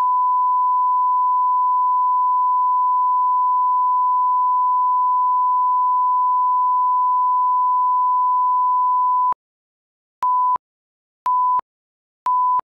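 Video line-up test tone with the colour bars: one steady pure tone that stops about nine seconds in. About a second later the leader countdown begins, with short beeps of the same pitch once a second, three in all.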